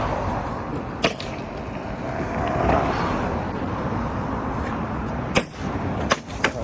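Pneumatic nail gun driving nails through plywood roof sheathing: a single sharp shot about a second in, then several quick shots near the end.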